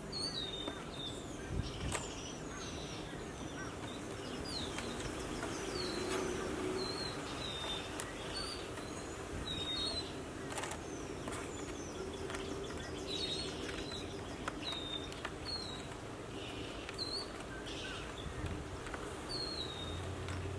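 A bird calling over and over outdoors: short high chirps that slide downward, repeating about once a second. A few sharp clicks sound now and then.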